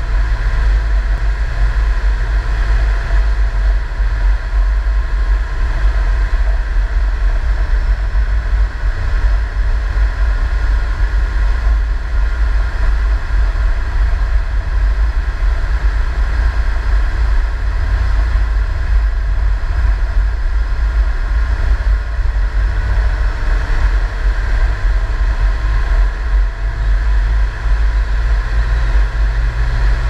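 Tracked Small Unit Support Vehicle (SUSV) travelling steadily along a road: a loud, even engine and track rumble with a faint higher whine above it, unchanging throughout.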